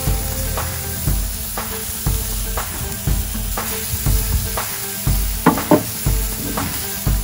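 Burger patties sizzling on a charcoal kamado grill's grate, with two brief knocks about three quarters of the way through. Background music with a steady beat plays along.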